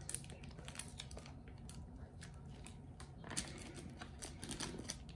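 Faint crinkling and clicking of clear plastic shrink-wrap being handled and pulled on a cardboard toy package, a little louder about three seconds in.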